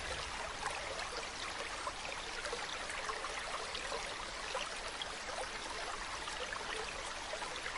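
Faint, steady hiss of background ambience, sprinkled with many small scattered ticks.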